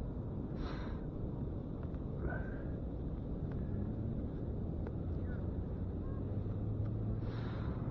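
Steady low rumble of wind and surf on a beach, with a few short high calls scattered through it and a low steady hum in the second half.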